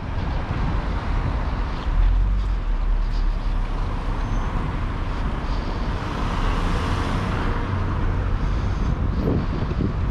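Road vehicle moving through town traffic: steady engine and road noise, with a low rumble that grows stronger about two seconds in.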